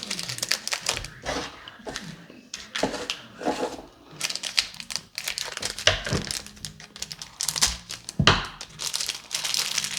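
Plastic chocolate-bar wrapper crinkling and being torn open, in irregular crackly bursts.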